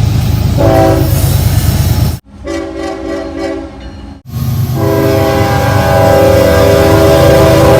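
Locomotive horns sounding multi-note chords over the heavy rumble of passing trains, across short spliced clips: a brief horn note about a second in over loud rumble, a fainter horn in the middle, then a long steady horn blast from about five seconds in over loud rumble.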